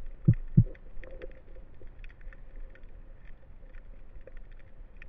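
Underwater sound heard through a camera housing on a speargun: two dull thumps in quick succession near the start, then a steady low rumble with faint scattered clicking.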